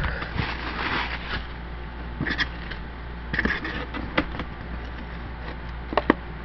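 Tissue paper rustling as it is pushed aside. A few sharp plastic clicks and crackles follow as carded blister packs are handled inside a cardboard shipping case, over a steady low hum.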